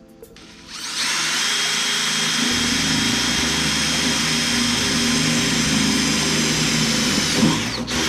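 Electric drill running steadily under load while boring a bolt hole through a bracket held against the split corner of a wood chipper's infeed. It starts about a second in and stops near the end, with a brief louder jolt just before it stops.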